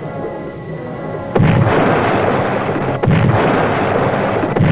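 Depth charges exploding at a distance from a submerged submarine: three sudden booms about a second and a half apart, each trailing off into a long rumble. The attack is wide of the mark, well astern of the boat.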